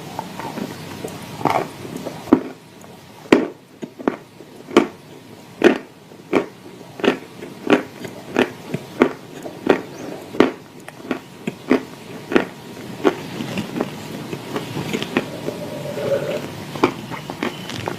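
Person chewing dry clay chunks with clay paste close to the microphone: sharp crunches in a steady rhythm of about one and a half per second, turning to quieter chewing near the end.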